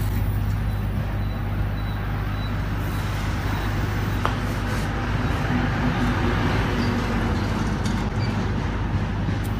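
Running machinery: a steady electric hum under a rushing, fan-like noise, as from a laser cutter's exhaust blower and cooling pump.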